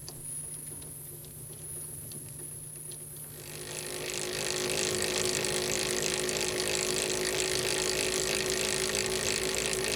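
RS-80 standard roller chain running on 17-tooth sprockets under a 1 kN load, with a steady mechanical hum and faint ticks. About three and a half seconds in, the chain noise grows louder over a second and then holds steady: the rollers striking the sprocket teeth as they engage at 100 m/min.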